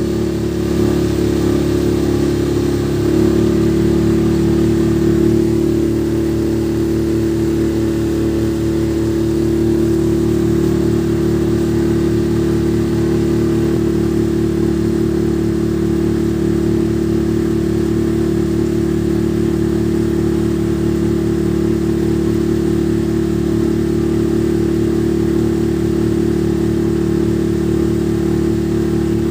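Motorboat engine running steadily under way, its note shifting and settling into a constant drone about three seconds in.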